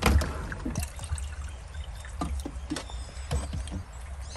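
Water trickling, with irregular small splashes, over a steady low rumble.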